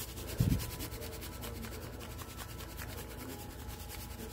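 Cornmeal being shaken from a container onto fish fillets, a quick, even rasping patter of shakes. A soft low bump about half a second in.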